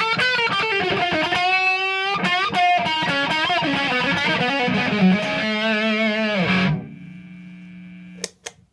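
Electric guitar (Epiphone Les Paul) through the lead channel of a Marshall JCM2000 TSL 60 valve amp, playing distorted lead lines with string bends and vibrato. The playing stops about two-thirds of the way through, leaving a quieter ringing note, and two sharp clicks follow near the end.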